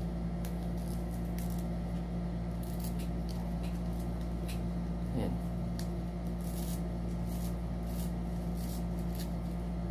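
Faint, scattered small clicks and rustles of a Giro cycling helmet's chin strap and plastic buckle being handled and fastened under the chin, over a steady low hum.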